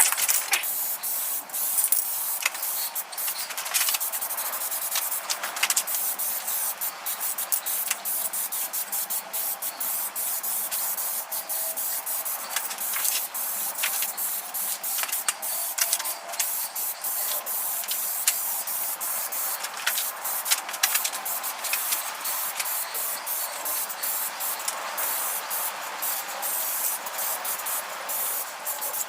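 Paint being sprayed on for a final coat: a steady hiss broken by many short ticks.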